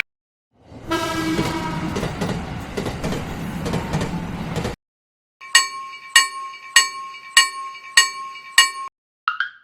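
A train going by for about four seconds, a rumble with a horn-like tone that fades, then a Japanese railroad crossing bell ringing its 'kan-kan' about six times at an even pace before it stops.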